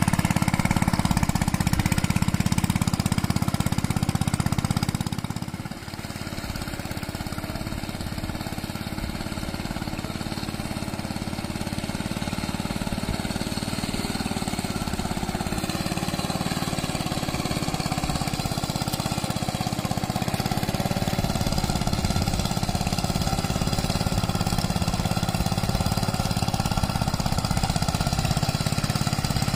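Single-cylinder diesel engine of a two-wheel hand tractor running while ploughing grassy ground. About five to six seconds in, the sound drops sharply with a falling pitch, then builds back up slowly.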